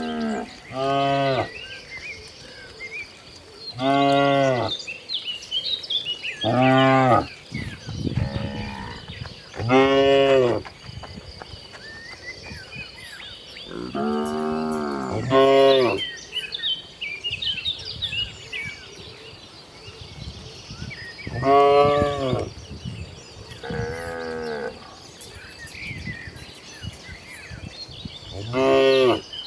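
A herd of cattle mooing: about ten long, low calls spaced through the stretch, some following one another closely. Faint chirping and a steady high-pitched whine run underneath.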